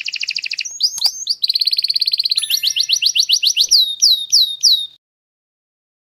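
Domestic canary singing: rapid rolling trills of quick repeated notes, then a run of faster rising notes, ending in three or four slower, falling whistled notes before the song stops about five seconds in.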